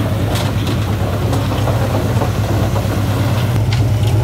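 Single-cylinder diesel engine of a công nông farm tractor running steadily at low speed with an even, fast chugging throb.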